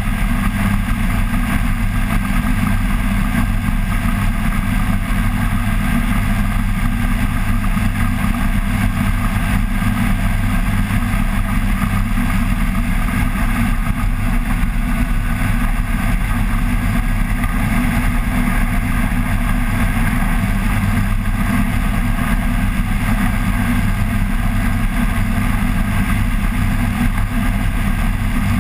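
Flexwing microlight trike's engine and pusher propeller running steadily in flight, a constant drone that holds one pitch throughout.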